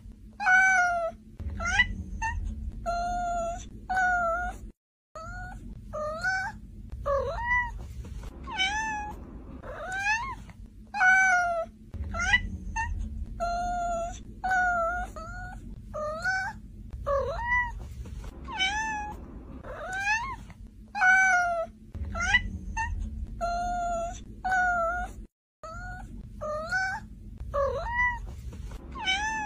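Cat meowing over and over, short high-pitched meows about one a second, some rising and some falling in pitch; the same run of meows appears to repeat about every ten seconds.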